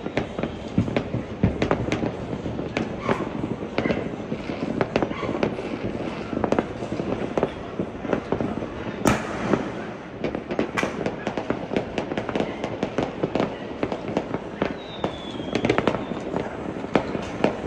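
Many fireworks going off at once, a dense, unbroken run of overlapping bangs and crackles, with one especially sharp crack about nine seconds in.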